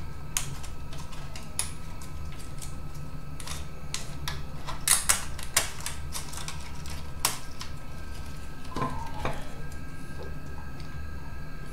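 Irregular small clicks and taps of plastic and metal parts being handled, as a DVD player's flat ribbon cable is fitted to its connector. The loudest clicks come in a quick pair about 5 seconds in, over a steady low hum.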